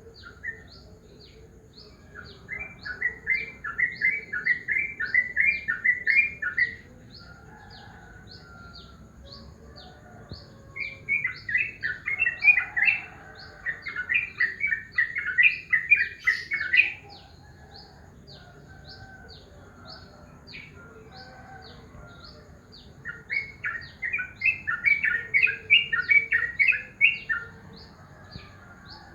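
Trucukan (yellow-vented bulbul) calling: three bouts of rapid chattering notes, each several seconds long, near the start, in the middle and near the end. Underneath runs a steady series of short high notes, about two a second.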